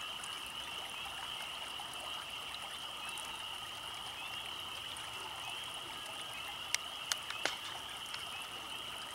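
A steady, high-pitched chorus of frogs calling, over the trickle of water running along a ditch. A few sharp clicks come about seven seconds in.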